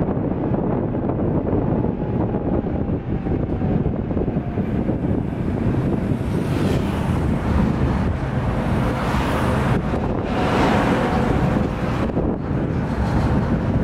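Tram running along its rails, a steady low rumble of wheels and running gear with wind noise on the microphone. A faint whine slowly falls in pitch over the first few seconds, and a louder hiss swells for a few seconds past the middle.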